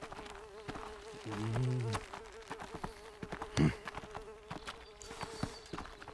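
A fly buzzing steadily, its pitch wavering slightly, with faint clicks. A brief low hum comes about a second and a half in, and a short low falling sound just past halfway.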